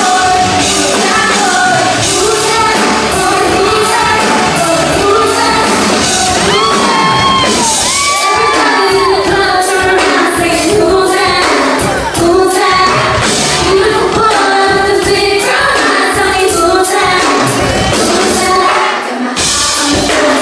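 Live pop music with a singer, loud, with shouts from the audience over it.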